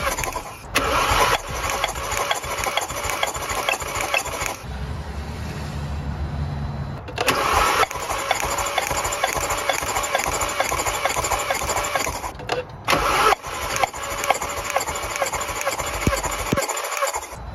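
Golf R32's 3.2 VR6 engine being cranked over by the starter motor with all spark plugs out and the throttle wide open for a compression test, so it spins without firing. The cranking comes in several separate runs with short breaks between them, and a stretch of lower steady hum in the middle.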